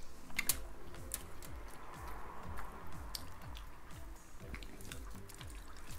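Close mouth sounds of people chewing food, with wet clicks and smacks scattered through.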